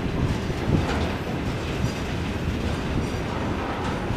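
Freight train wagons rolling past on the station tracks: a steady low rumble of wheels on rails, with scattered light knocks.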